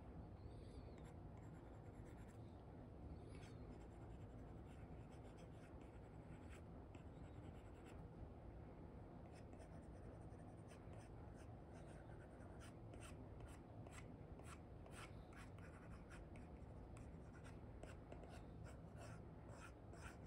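Faint scratching and tapping of an Apple Pencil nib on a paper-like iPad screen protector as short brush strokes are made. The strokes come sparsely at first, then in quick succession from about halfway through.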